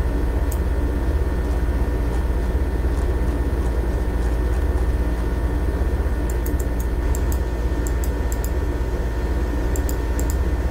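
A steady low electrical hum, with a few quick groups of light clicks about six seconds in and again near the end.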